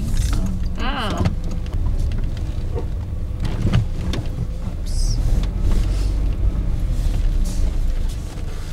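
Steady low road and engine rumble heard from inside a moving car's cabin, with a short drawn-out vocal sound from a person about a second in.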